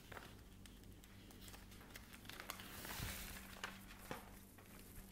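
Faint handling of a plastic lamination sheet and paper on a tabletop: scattered light ticks and a soft rustle that swells about three seconds in, over a low steady hum.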